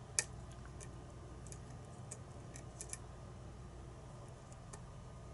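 A lock pick working the pin stack of a challenge lock held in a false set. It gives a scatter of small, faint clicks, about eight in all, with the sharpest one just after the start.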